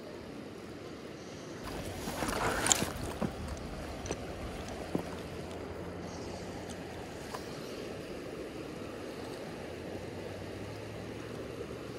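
Steady rush of a fast-flowing river over rocks. About two seconds in there is a brief louder burst of noise, followed by a few faint sharp clicks.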